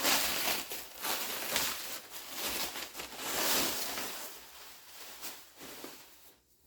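Packaging rustling and crinkling in irregular bursts as a rifle is unwrapped, dying away near the end.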